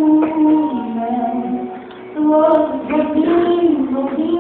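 A female voice singing a slow melody in two phrases of held notes, with a short break between them in the middle.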